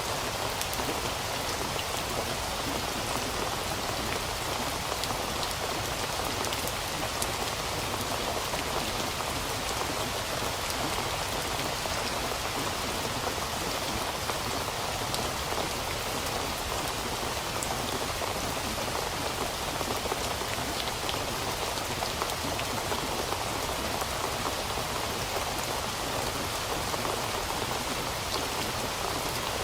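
Steady rain falling: an even hiss with scattered small drop ticks, unchanging throughout.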